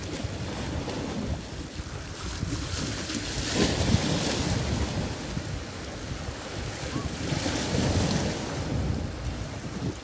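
Small sea waves washing and splashing against an icy shoreline, swelling louder twice, about three and a half seconds in and again about four seconds later. Wind buffets the microphone with a low rumble.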